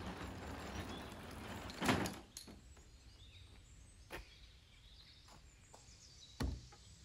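Wooden dresser rolling on small wheeled furniture dollies across concrete: a rattling rumble that stops with a sharp knock about two seconds in. A few light clicks follow, then a heavy thump near the end as a wooden drawer is set down on the concrete.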